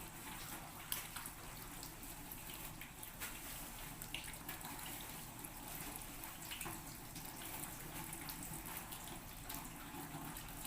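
Hands being washed under a running tap, with water splashing into a sink and a few small clicks and drips.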